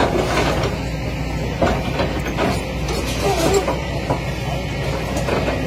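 Kobelco hydraulic excavator at work: its diesel engine runs steadily while the bucket and tracks clank and scrape repeatedly against earth and metal debris.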